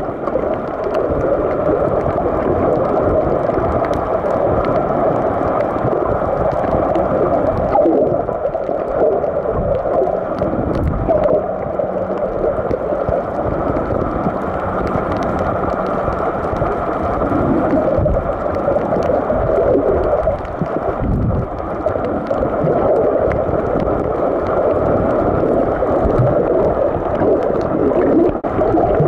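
Muffled underwater noise picked up by a camera held below the surface: a steady rumble and gurgle of moving water, with faint scattered clicks.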